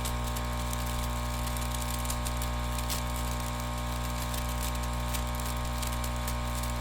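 Vaporizer blowing air into its vapour bag: a steady motor hum with several fixed tones, and faint irregular ticks over it.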